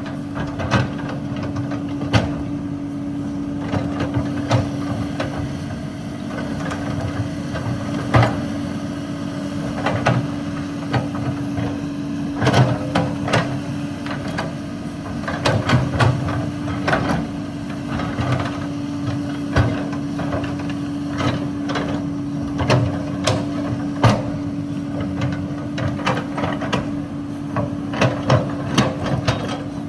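Excavator digging limestone: the diesel engine runs steadily under a constant hum, while rock and the steel bucket knock and clatter irregularly, more often in the second half.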